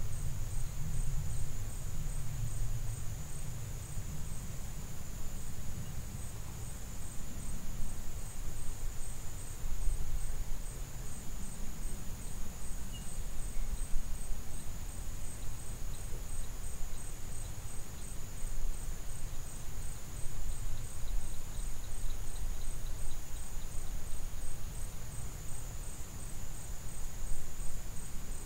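A steady, high-pitched insect chorus trilling without a break, over a low, uneven rumble.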